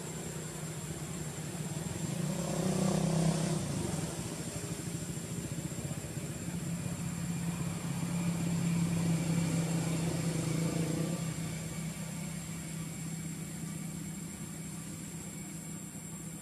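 Low motor-vehicle engine drone that grows louder twice, about two to four seconds in and again around eight to eleven seconds, over a thin steady high whine.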